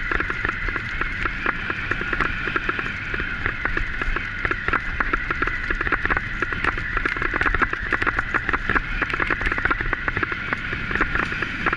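Bicycle rolling fast over a dirt and gravel forest track while towed by a dog: a steady tyre whir with constant crackling and rattling from the wheels on the loose surface, over a low rumble.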